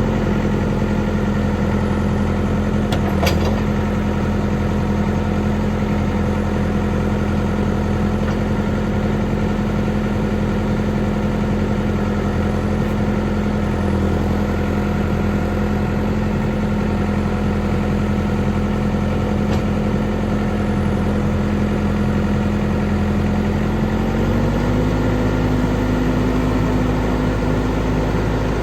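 Caterpillar 420 backhoe loader's diesel engine running steadily at low revs; its pitch steps up slightly near the end as the revs rise a little. A single brief click sounds about three seconds in.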